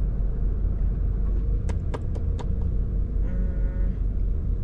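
A van's engine idling with a steady low rumble, a few faint clicks around the middle and a brief tone near the end.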